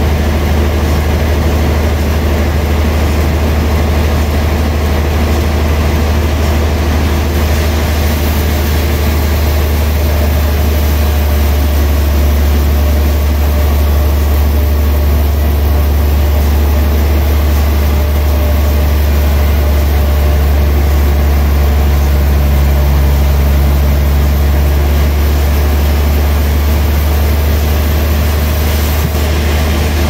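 Large vertical band sawmill running with a steady, loud low drone as its blade cuts through a giant log fed on the carriage. A faint extra hum joins in about two-thirds of the way through.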